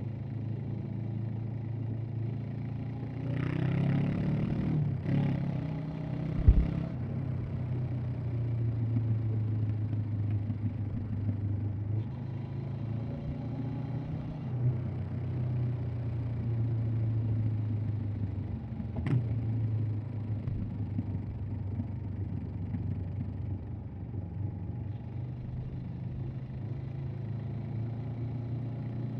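Honda CB500X's parallel-twin engine running at a steady cruising pitch under way. A few seconds in, a louder rush of noise swells for about three seconds and ends with a sharp knock; a single sharp click comes about two-thirds of the way through.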